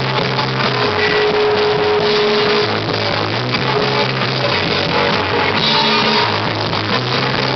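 Rock band playing live: electric guitars over a drum kit, with a note held for about a second and a half a second in.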